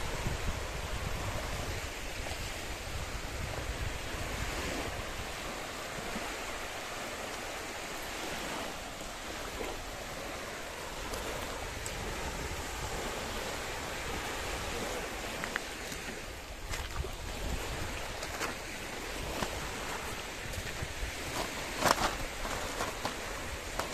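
Small waves breaking and washing up a shallow sandy shore, a steady surf hiss, with wind buffeting the microphone. A few sharp clicks come late on, the loudest about two seconds before the end.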